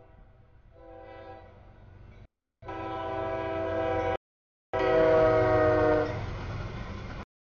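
CSX freight locomotive's multi-chime air horn sounding for a grade crossing. It grows louder as the train nears and dips slightly in pitch as it reaches the crossing about six seconds in. It then gives way to the rumble of the locomotive and train rolling through.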